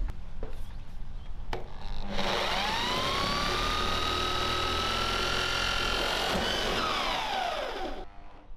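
Electric drill driving a washered roofing screw into corrugated metal roofing sheet. A few knocks come first; about two seconds in the motor whines up quickly, runs steadily with its pitch creeping higher, then winds down near the end.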